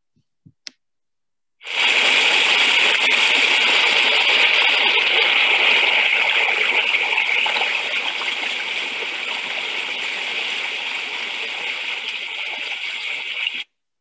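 Recorded sound of a river's water rushing steadily, starting abruptly about two seconds in and cutting off suddenly near the end.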